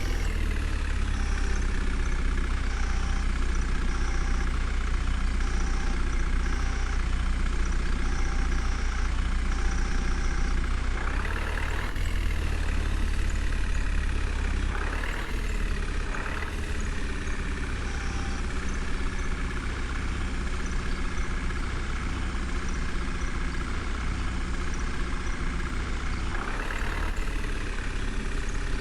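Diesel engine of a backhoe loader running steadily, revving up briefly a few times as it works.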